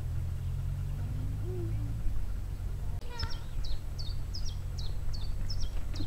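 A songbird singing a string of short, high, downward-sweeping notes, about two or three a second, starting about halfway through. A steady low rumble runs underneath.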